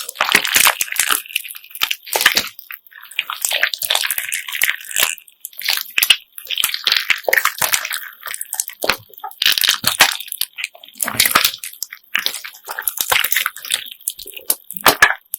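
Homemade slime mixed with assorted beads being squeezed and kneaded by hand: sticky squelches and crackles with the beads clicking and clattering, in bursts with short pauses.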